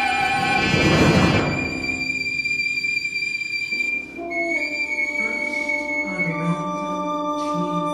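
Contemporary chamber ensemble of strings, winds, brass and percussion playing live: a loud, noisy swell about a second in, then long held notes, with a high sustained note over lower notes that enter one after another.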